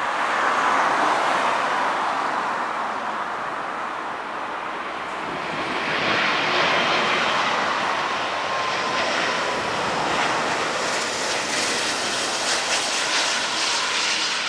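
Airbus A340-600's four Rolls-Royce Trent 500 turbofans at approach power as the four-engined airliner flies low on final approach: a loud, steady jet rush that swells near the start, eases off around the middle and swells again, turning hissier toward the end.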